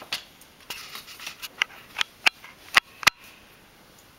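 Thick cardboard jigsaw pieces being picked up, shuffled and set down on a wooden floor by a toddler's hand: a run of sharp, irregular taps and clicks, about eight in three seconds, then a short lull near the end.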